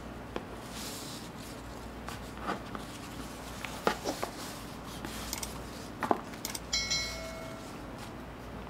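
Hands handling packaging: scattered clicks, taps and light rustles of cardboard and paper, with a brief ringing tone about seven seconds in.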